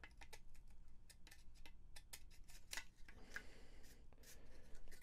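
Faint, irregular clicks and taps of the Modal Craftsynth kit's printed circuit boards being handled and fitted together.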